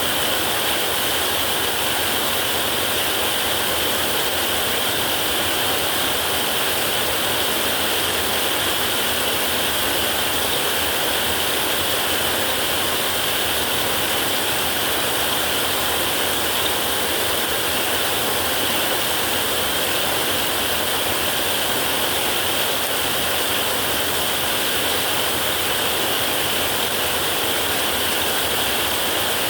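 Heavy rain drumming steadily on a metal roof, an even hiss brightest in the upper-middle range, with no thunderclap in this stretch.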